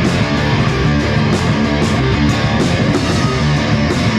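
Rock band playing loud: strummed guitar with drums keeping a steady beat, cymbal or snare strikes two to three times a second.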